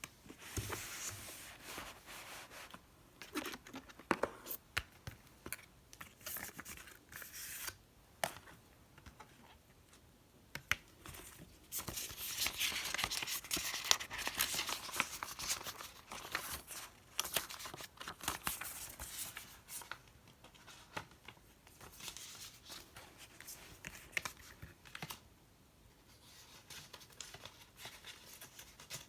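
Packaging being torn open and handled: paper and plastic tearing and crinkling, with scratchy clicks and rustles. About halfway through comes a longer, louder stretch of continuous tearing.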